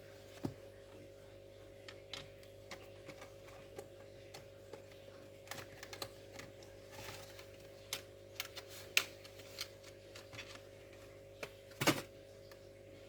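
Irregular small clicks and taps of hands working on the inside of a laptop, with a louder clatter near the end, over a steady electrical hum.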